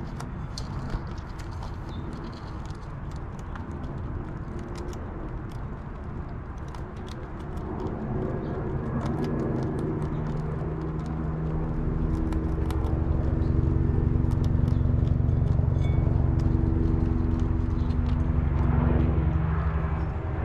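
Small irregular clicks of ground squirrels nibbling seeds and nuts close to the microphone. From about eight seconds in, a low engine drone with a steady pitch grows louder and holds, covering the nibbling.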